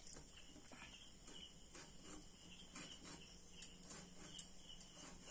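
Faint, steady cricket chirping, with scattered soft clicks and taps of a knife and vegetables being handled; the clearest taps come about three and a half and four and a half seconds in.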